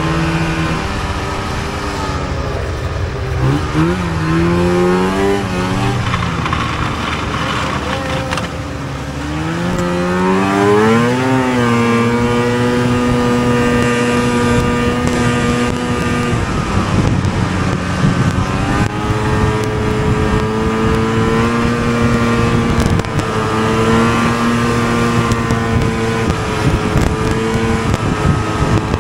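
Two-stroke snowmobile engine heard from the rider's seat, revving up twice in the first ten seconds, then holding steady at trail speed. It eases off briefly a little past halfway through and picks back up to a steady run.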